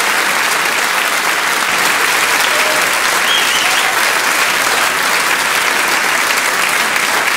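Audience applauding steadily: dense, even clapping throughout.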